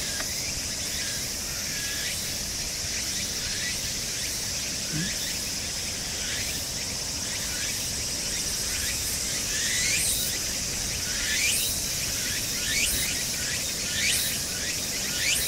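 Outdoor ambience: a steady high insect drone, with short rising chirps that come about every second or so and grow louder in the second half.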